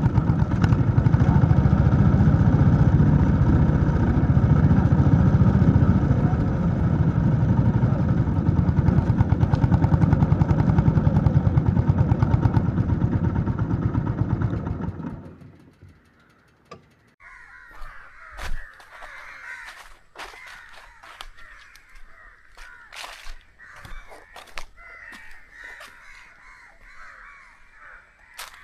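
Honda CB350 H'ness's single-cylinder engine idling with a steady, rapid thump, switched off about fifteen seconds in. After that, birds call repeatedly against quiet outdoor air, with a few scattered clicks.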